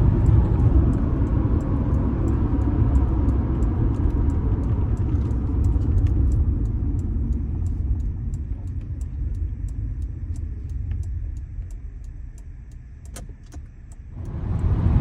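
Honda Accord V6 engine and road noise heard from inside the car while driving. It fades as the car slows about two-thirds of the way through, then rises again sharply near the end. A faint rapid ticking runs underneath.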